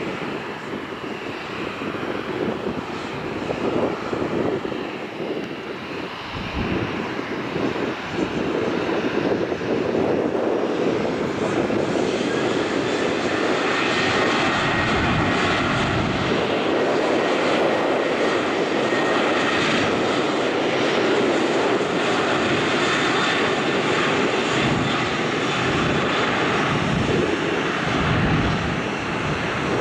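Boeing 737-800 jet airliner's CFM56-7B turbofan engines spooling up to takeoff power and running at full thrust through the takeoff roll: a steady dense engine noise that grows louder over the first ten seconds or so, then holds, with a faint high whine.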